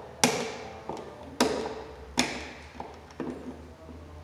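Hand pliers clicking and tapping against a wall outlet and its wires as the wires are worked onto the terminals. There are three loud, sharp clicks, each with a short ringing tail, among several fainter taps.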